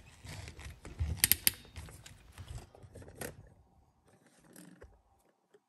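Keyless chuck of a cordless drill being hand-tightened onto a hole saw arbor's shank: faint scattered clicks and small knocks, the loudest about a second and a half in and about three seconds in, then it goes quiet.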